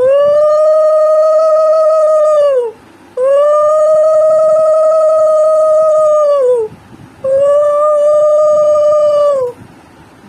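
A conch shell (shankha) blown three times in long, loud, steady notes, each sagging in pitch as it dies away; the third blast is the shortest.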